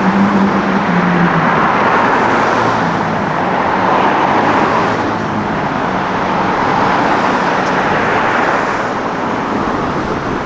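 City street traffic: cars driving by with a steady tyre and engine noise that swells and eases slowly, and a low engine hum in the first second or so.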